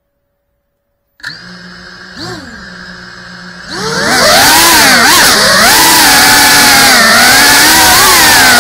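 GEPRC Cinelog 35 cinewhoop's brushless motors and ducted propellers, recorded on the drone's own camera: they start spinning about a second in with a steady whine and a short throttle blip, then spin up loudly near the middle as the drone lifts off, the whine rising and falling with the throttle.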